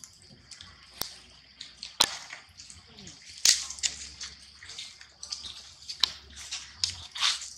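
Dry leaf litter crackling and rustling underfoot, with several sharp snaps of twigs or leaves, irregular, as the forest floor is walked over.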